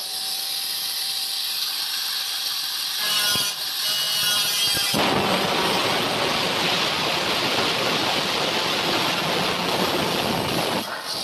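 Small electric angle grinder with a thin cut-off disc, running at speed and cutting into red-painted metal flashing sheet. It starts as a steady high whine with hiss, and the cutting grows heavier and fuller from about five seconds in.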